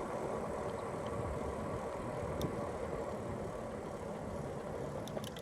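Steady road noise of a bicycle ride on city streets, a continuous rumble of tyres, wind and traffic. A few light clicks come midway and near the end.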